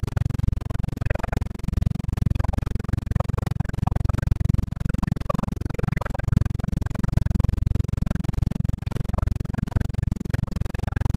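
Robinson R22 helicopter heard from inside its cabin in flight: a steady low drone of engine and rotor with a fast flutter from the main rotor blades.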